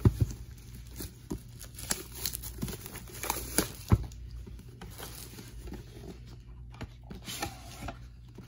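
Plastic shrink wrap crinkling and tearing as it is pulled off a cardboard trading-card box, with sharp crackles that thin out in the second half. A louder knock comes right at the start and another about four seconds in, as the box is handled.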